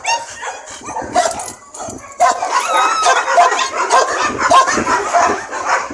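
A dog barking and whining in short yips, with a wavering high whine about two and a half seconds in.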